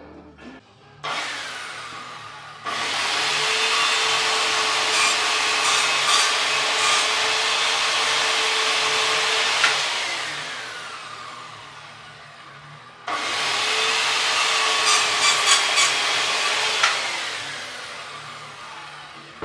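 Evolution Rage-B circular saw making two cuts through a painted timber board, its motor whine steady through each cut and falling away as the blade winds down after each, after a brief first pull of the trigger about a second in. Each cut carries a cluster of sharp clicks as the blade goes through fasteners in the wood.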